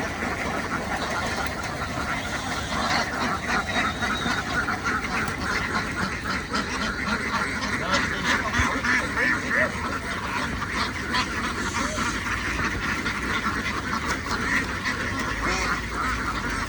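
A flock of domestic ducks quacking in a dense, continuous chorus of many overlapping calls.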